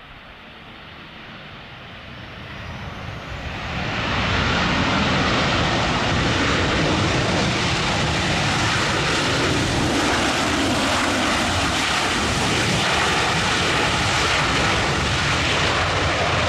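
Jet engines of a Boeing C-40 Clipper (CFM56 turbofans) on landing, a loud even roar that swells over the first four seconds, then holds steady.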